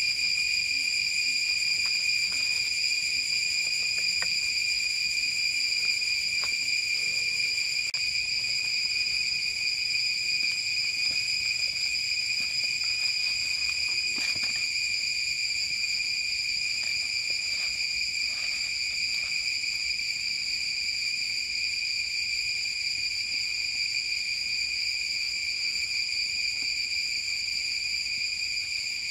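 Insects singing in a steady, shrill high-pitched drone that holds one pitch without a break, with a few faint taps and crackles from a stick stirring campfire embers.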